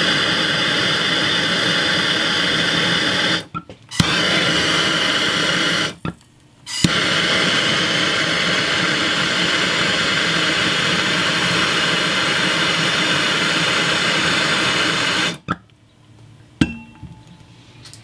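MAP gas torch flame burning with a steady loud hiss while it heats a copper pipe joint for soldering, with a flame that is not adjusted properly. It cuts out briefly twice, coming back each time with a sharp click, and shuts off about fifteen seconds in, followed by a single click.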